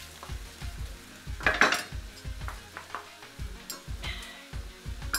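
Egg fried rice sizzling in a hot wok while a wooden spoon stirs and scrapes it, with a louder scrape and clatter about one and a half seconds in. Music with a steady low beat plays underneath.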